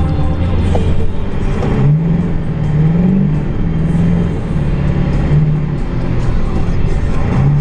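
Ford F-250's 7.3 L Power Stroke V8 turbo-diesel running under way, its pitch rising twice about two and three seconds in, with music playing over it.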